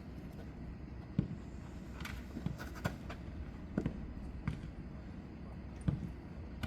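Jokgu ball being kicked and bouncing on the court during play: about seven sharp, irregular thumps, the loudest near the end.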